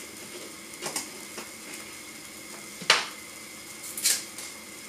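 A few sharp clinks and taps of kitchenware as spices are spooned into a small glass jar, the loudest about three seconds in, over the faint steady hiss of onions sizzling in oil.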